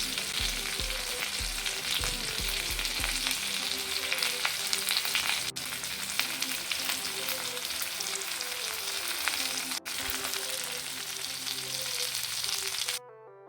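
Marinated chicken drumsticks frying in a pan: a steady sizzle and crackle that cuts off suddenly near the end.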